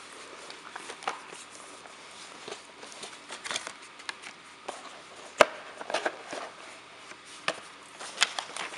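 Light, scattered clicks and rustles of a gift box being handled and opened in the hands, with one sharper click about five and a half seconds in.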